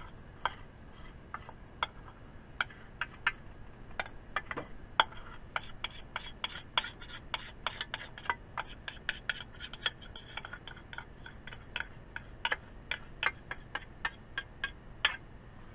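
A metal spoon stirring melted chocolate in a stainless steel saucepan and scraping it out, clinking and scraping on the metal: irregular sharp clicks, several a second, thickest in the middle.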